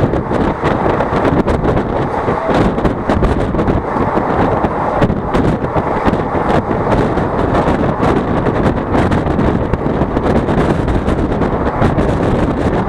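Heavy wind buffeting the microphone from a moving passenger train, over the steady running noise of the coaches' wheels on the rails.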